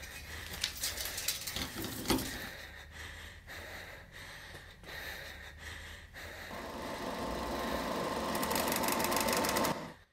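Scattered clicks and crackles over a low hum; then, about six and a half seconds in, a rapid rattling noise with a steady high tone builds in loudness and cuts off suddenly.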